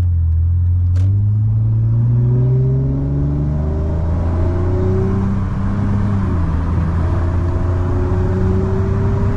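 Lexus ES350's 3.5-litre 2GR-FE V6 pulling hard under acceleration. It rises in pitch, drops back as the automatic shifts up, about a third and about two thirds of the way through, and climbs again each time. A single sharp click about a second in.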